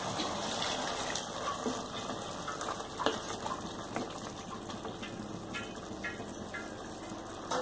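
Water poured into a hot pan of sautéed chicken pieces, then a wooden spatula stirring the chicken through the liquid, with a few knocks of the spatula against the pan, the sharpest about three seconds in.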